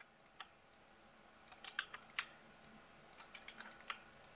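Faint computer keyboard keystrokes: irregular light taps in loose clusters as keys are pressed.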